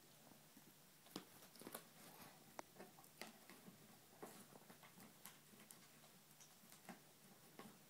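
German Shepherd chewing a barbecued pig ear: faint, irregular crunches and clicks of teeth on the tough ear.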